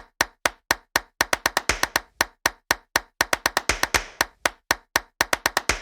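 Intro music beat of sharp clap-like percussion hits, about four a second with quicker runs in between and a short rising swell of noise about four seconds in.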